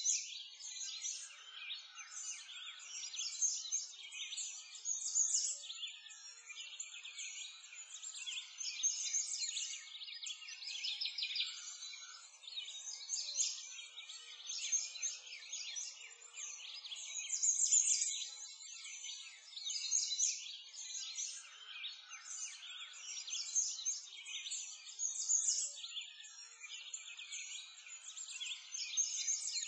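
A dense, unbroken chorus of many small birds chirping and twittering, all high-pitched, with nothing lower underneath.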